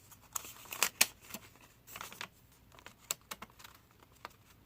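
Paper pages and cards of a handmade junk journal rustling and crinkling as they are handled and turned, with a scatter of sharp crackles, the loudest about a second in.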